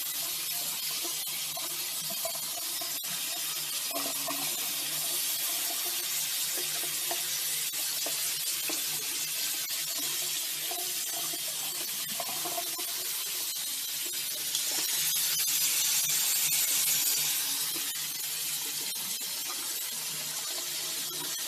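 Steady hiss of running water, swelling louder for a couple of seconds in the second half, with small scattered clicks.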